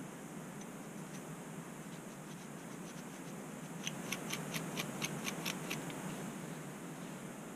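Dandruff being scratched off a scalp through thick hair. About halfway through comes a quick run of about a dozen sharp, scratchy ticks, roughly six a second, over a steady hiss.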